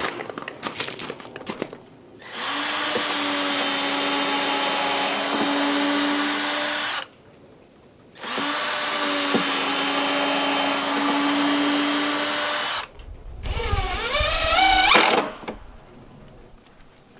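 Cordless drill driving screws into wood: a few knocks, then two steady runs of about four and a half seconds each, then a shorter run whose pitch rises and wavers.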